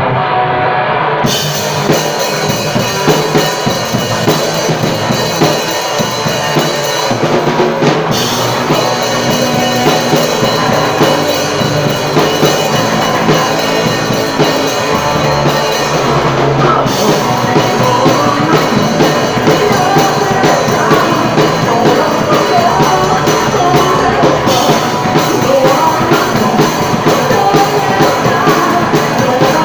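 A band playing a rock song: guitar, with a drum kit coming in about a second in and keeping a steady beat with cymbals.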